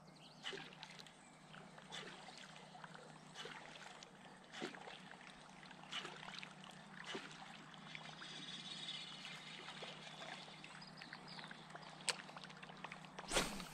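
A cast fishing lure plops into calm river water about six seconds in, among scattered light clicks and taps. A louder knock comes near the end.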